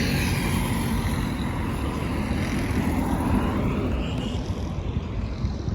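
Road traffic: vehicles driving past, their engine and tyre noise sweeping down in pitch as they pass, over a steady low rumble.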